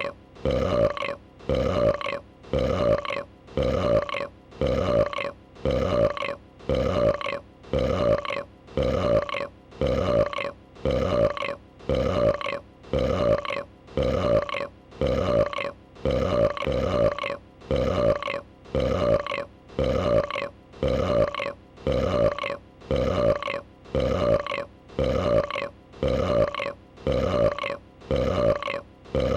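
A female dragon's burp sound effect, a short belch repeated in an identical loop about once a second.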